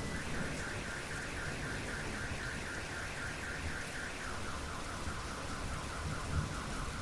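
Steady rain with a car alarm going off: a fast warbling siren, about five pulses a second, that switches to a lower warble about four seconds in.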